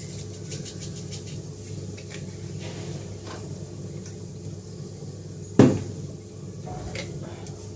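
A single sharp knock of a kitchen utensil about five and a half seconds in, over a steady low hum and a few faint ticks, while cumin and asafoetida temper in a little oil.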